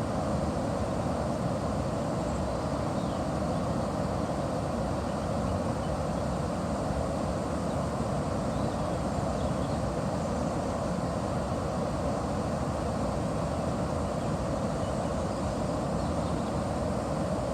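Steady rushing of river water at a watermill, an even full roar with no breaks.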